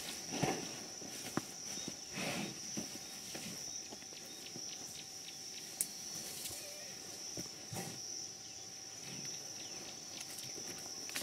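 Baby black rhino scuffling and rustling about in sawdust while playing, in a few short noisy bursts and clicks, over a steady high-pitched drone.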